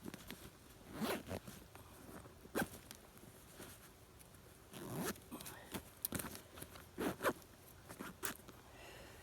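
A zipper being pulled in several short rasping strokes.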